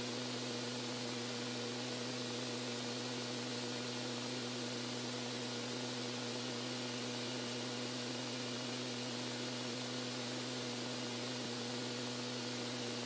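Steady jet aircraft noise in flight: an even hiss with a low, steady hum beneath it.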